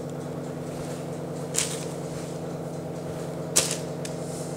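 Two light taps about two seconds apart as pieces of soft dough are set down on a parchment-lined metal baking tray, with a fainter tap near the end, over a steady low hum.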